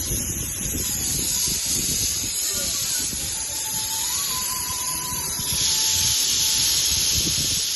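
Pressure cooker letting off steam with a steady hiss that grows louder about five and a half seconds in, with a faint thin whistling tone alongside.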